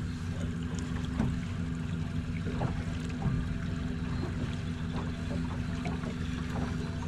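Boat motor running steadily at low speed, with a few light knocks and handling sounds over it.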